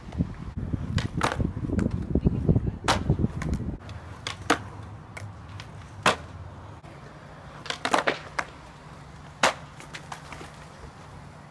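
Skateboard's urethane wheels rolling on concrete for the first few seconds, then a string of sharp, separate clacks as the board's deck and tail hit the concrete and the box. These are the sounds of a skater attempting an ollie into a manual on a concrete box and bailing.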